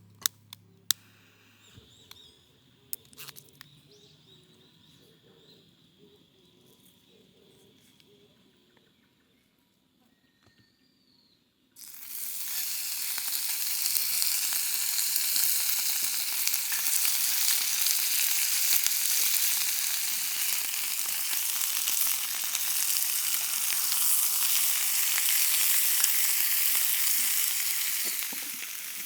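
A few light clicks of handling, then about 12 seconds in a loud, steady sizzle starts abruptly: food frying in a hot pan.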